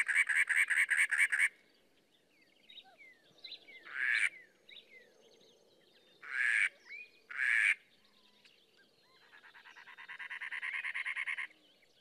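Cactus wren song: a fast, harsh, chugging series of notes likened to a car that won't start. It is heard twice, one run ending about a second and a half in and another building near the end. Between them come a few single harsh notes and faint chirps from other birds.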